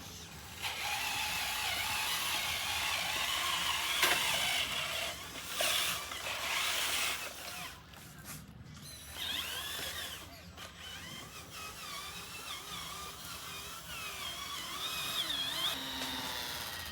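Small electric motors and gearboxes of RC construction models whining as they work, the pitch wavering up and down with the load, with a sharp knock about four seconds in.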